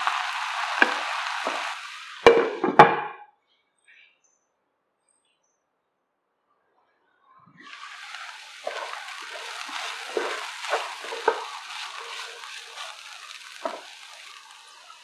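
Diced vegetables sizzling in oil in a pan, with a wooden spatula stirring and scraping them. Two sharp knocks come a little over two seconds in, then the sound cuts out for about four seconds before the sizzling and occasional scrapes resume, quieter.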